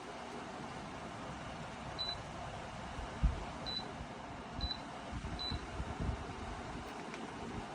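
Dreo Cruiser Pro tower fan running with a steady rush of air. Four short high beeps come from its controls, along with a few soft low thumps.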